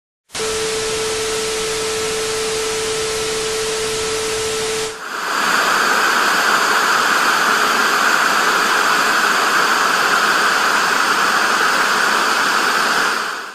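Television static: an even hiss with a steady held tone for about the first five seconds, then a louder, brighter hiss that fades out near the end.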